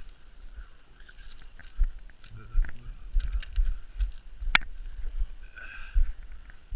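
Handling and movement noise while a landing net holding a pike is lifted from the water and carried over gravel: crunching footsteps, rustling mesh and clothing, and low thumps on the microphone, with one sharp click about halfway through.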